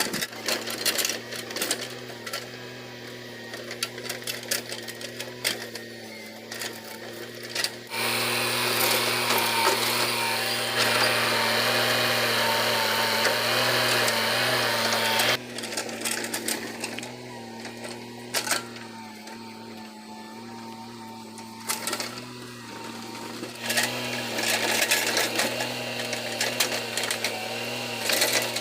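Mini excavator's engine running steadily, with scattered clanks and knocks. From about 8 to 15 seconds in the machine works noticeably louder under load.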